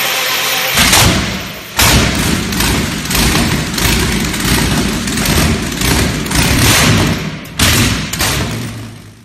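Logo intro sound effect: a loud, noisy rumble with sudden thuds about a second in, near two seconds and again near the end, then fading out.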